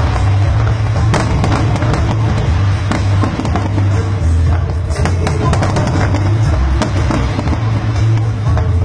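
Aerial fireworks bursting and crackling in quick succession over a constant low rumble, with music playing.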